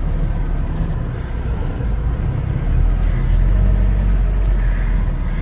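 Off-road vehicle engine running with a steady low drone, the rumble growing heavier about three seconds in.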